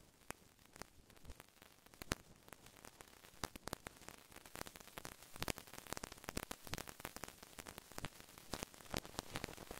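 Crackling static: irregular pops and clicks over a hiss, growing denser and louder, with one sharp pop about two seconds in.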